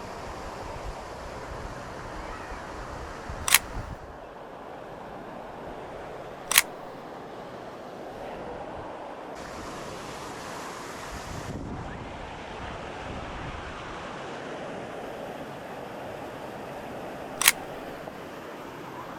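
Sony a6400 camera shutter firing three single clicks, the first two about three seconds apart and the last near the end, over steady outdoor background noise.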